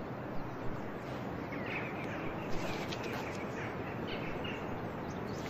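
Outdoor ambience: a steady background hiss with small birds chirping, a run of short calls from about a second and a half in until about four seconds in.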